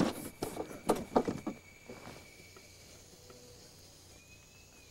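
Gear being unloaded from a canoe: a few short knocks and rustles as dry bags are handled against the hull and wooden dock, bunched in the first second and a half, then only faint background.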